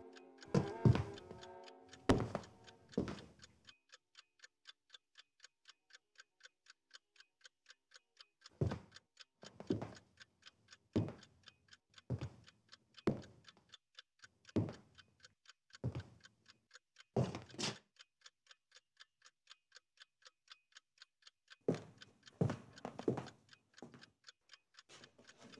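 A clock ticking fast and evenly, overlaid by slow, heavy footsteps on wooden floorboards, about one a second, in two stretches. Music dies away in the first few seconds.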